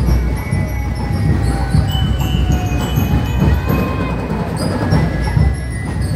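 Loud street-parade percussion music, with dense continuous drumming and the noise of a crowd walking in procession.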